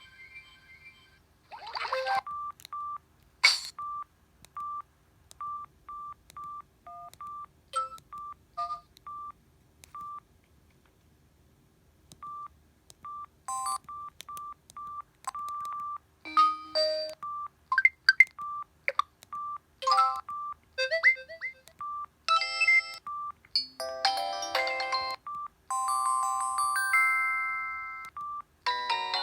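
Samsung SGH-E720 mobile phone's loudspeaker playing its preloaded ringtones one after another in short snatches of chirps, gliding tones and melodies, broken up by many short key beeps, all at one pitch. There is a near-silent pause about ten seconds in, and a fuller multi-note polyphonic melody plays near the end.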